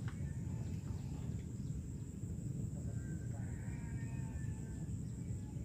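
Outdoor ambience: a steady low rumble with faint bird calls and a steady high-pitched insect drone.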